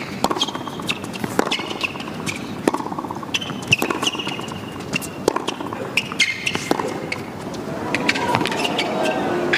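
Tennis rally on a hard court: sharp pops of racket strings striking the ball and ball bounces, with short high sneaker squeaks on the court surface over a low crowd hum.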